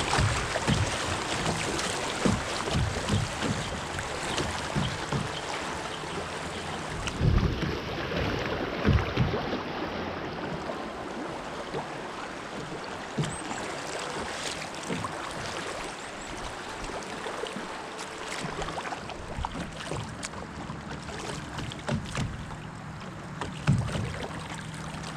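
Water noise around a kayak on a river, with irregular low thumps of wind buffeting the microphone.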